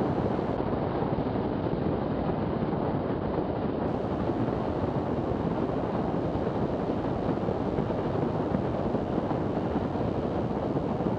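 Steady cockpit noise of a Zenith STOL CH 750 light aircraft on short final with full flaps: the engine and propeller running at reduced approach power, mixed with rushing airflow.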